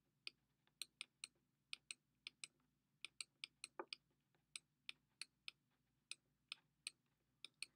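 Pen stylus tapping on a drawing tablet while handwriting: faint, sharp, irregular clicks, about three a second.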